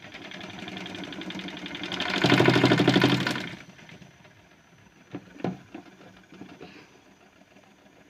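Washing machine motor running with a fast, even pulse, building up and getting loud for about a second before cutting off, followed by a few short clicks.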